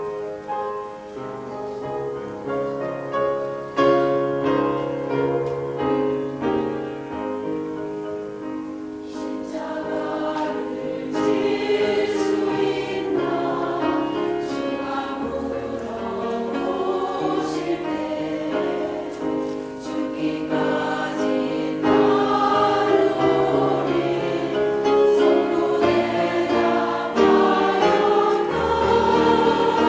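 A choir singing in held, sustained notes, growing gradually louder over the passage.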